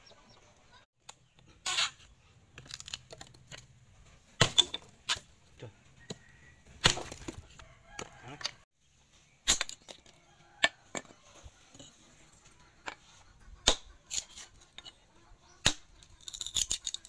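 Hand-forged leaf-spring steel axe striking wood: many sharp chops at irregular intervals, some in quick clusters, as it cuts into logs and splits a stick on a chopping block.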